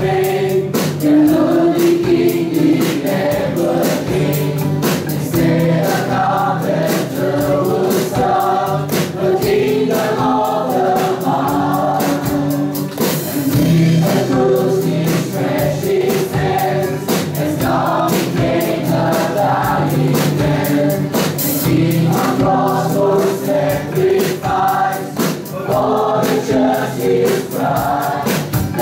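Live worship band playing a gospel song: a woman and men singing together into microphones over strummed acoustic guitar, bass guitar and a drum kit with a steady beat.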